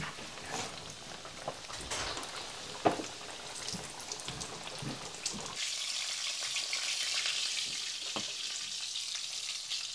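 Chebureki pastries frying in hot oil in a pan: a steady sizzle and crackle with a few sharp clicks. About halfway through the sizzle turns into a louder, even hiss.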